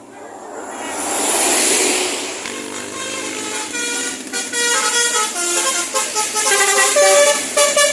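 A bus goes by with a swelling rush of noise. Then its basuri (telolet) musical air horn plays a tune of quickly changing notes, which gets louder toward the end.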